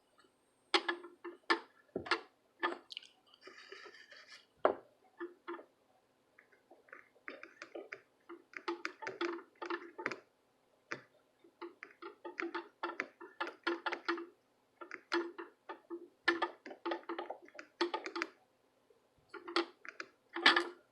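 Small hand tools clicking, tapping and scraping irregularly against a circuit board during desoldering, with a few sharper knocks and a brief hiss, over a faint steady hum.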